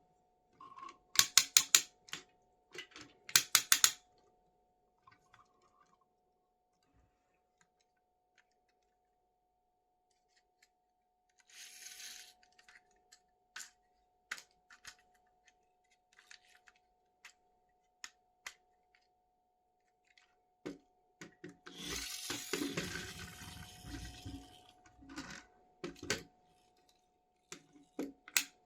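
Hands handling plastic toys and their packaging. There are two quick runs of sharp clicks in the first few seconds, scattered single clicks, a short rustle in the middle, and a longer stretch of rustling near the end.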